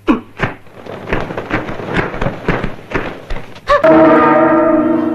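Martial arts film soundtrack during a fight: a quick series of thuds, several a second, then a loud held music chord comes in a little under four seconds in.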